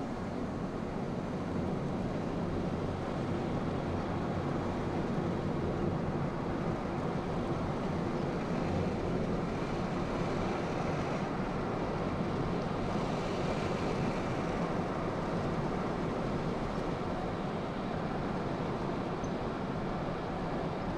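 Steady road noise inside a moving car's cabin: tyres on asphalt and the engine at an easy cruise, with a brighter hiss for a few seconds about halfway through.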